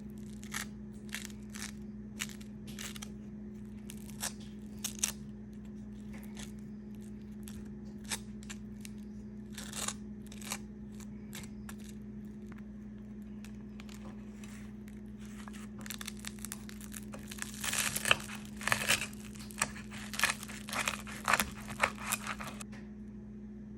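Hands handling things while a sandwich is made: scattered light clicks and taps, then for several seconds near the end a dense stretch of crinkling and rustling, over a steady low hum.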